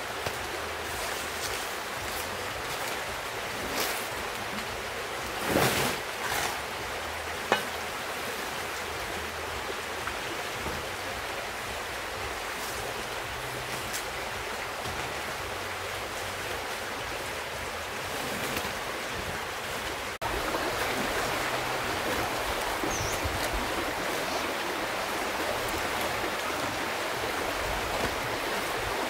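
Steady rush of a river flowing close by, with a few brief rustles and knocks of large banana leaves being handled in the first several seconds. The rushing gets a little louder about two-thirds of the way through.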